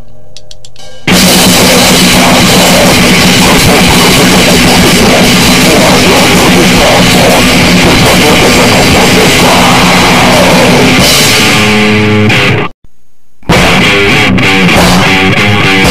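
Lo-fi noisecore music: heavily distorted guitar and drums in a dense, loud wall of noise that kicks in about a second in. It cuts out abruptly for a moment near the end, then starts again.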